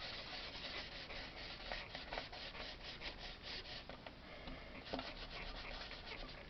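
Ink blending tool rubbing light green ink through a stencil onto cardstock, in quick repeated scratchy strokes.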